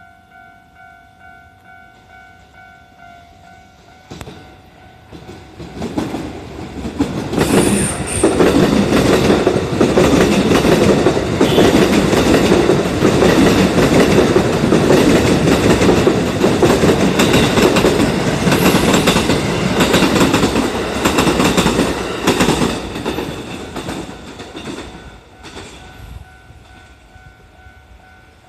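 Japanese level-crossing alarm ringing in a steady pulsing beat, drowned out as a Kintetsu electric train comes up, runs past loudly with wheels clicking over the rail joints, and fades away; the crossing alarm is heard alone again near the end.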